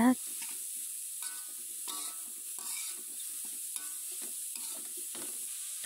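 Grated green papaya being stir-fried in a metal wok: a metal spatula scrapes and turns the shreds in repeated strokes over a steady sizzle of hot oil.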